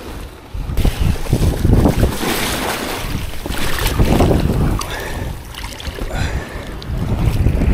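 Wind buffeting the microphone in uneven gusts over the wash of surf breaking on the beach.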